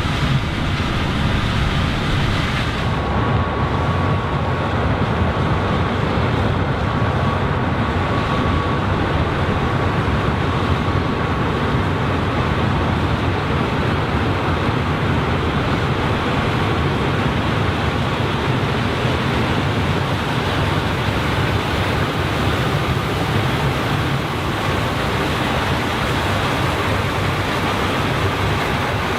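Combine harvester running steadily while harvesting corn, a dense low drone with a faint high whine for several seconds in the first part.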